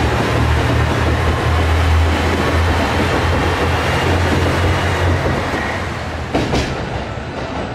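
Diesel passenger train pulling out along a station platform: a steady low engine drone under the rolling of wheels on rail, easing off about five seconds in. A few sharp clicks near the end.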